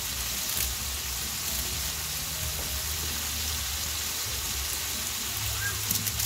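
Pork hock pieces sizzling steadily in a stainless-steel wok, with a low hum underneath and a few light clicks near the end as seasoning powder is shaken from a sachet over the pan.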